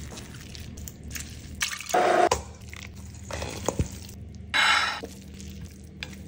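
Wet squelching of tender roast meat being pulled apart with a fork and tossed with metal tongs in a steel bowl, in a few louder bursts. There is a sharp click of the tongs against the bowl just before four seconds in.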